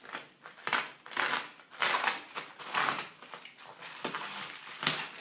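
Plastic courier mailer being cut open along its edge and handled, with irregular strokes of crinkling and tearing plastic.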